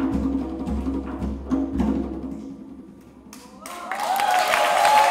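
Hand-drum music with a steady low accompaniment, fading away about two and a half seconds in. Applause and cheering break out about a second later as the music ends.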